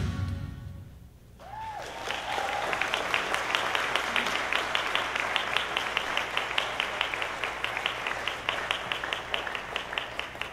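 Backing music fades out, then an audience claps steadily, with one voice calling out briefly as the applause begins. The clapping thins to scattered claps near the end.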